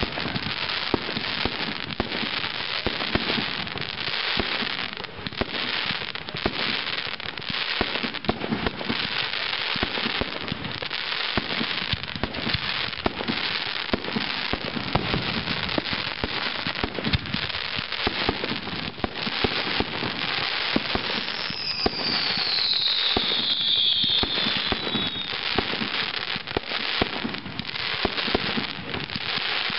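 Fireworks display: a continuous barrage of bangs and crackling, many reports a second. About three-quarters of the way through, a high whistle falls in pitch.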